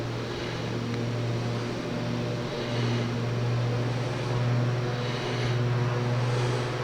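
Small petrol lawn mower engine running steadily, its even hum swelling and fading a little as it moves.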